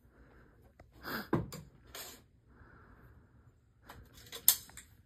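Scattered clicks, knocks and light rattles of gear being handled, with the sharpest knock about four and a half seconds in.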